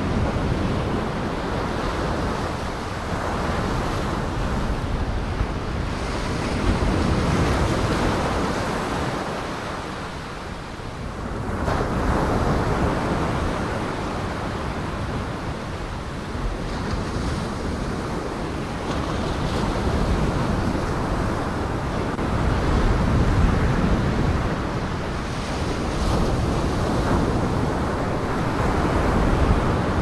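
Surf: waves breaking and washing in, mixed with wind, the rush swelling and easing every few seconds with a lull about ten seconds in.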